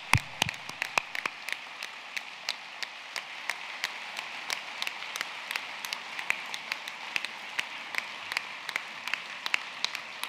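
Audience applauding: many hands clapping in a dense, steady patter, with a few louder nearby claps in the first second.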